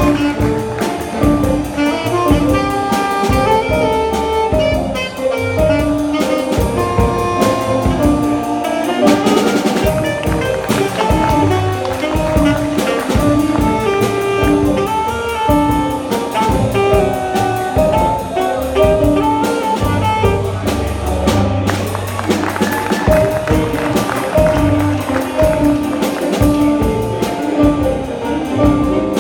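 Jazz band playing, with saxophone lines over a drum kit and a crash of cymbal about nine seconds in.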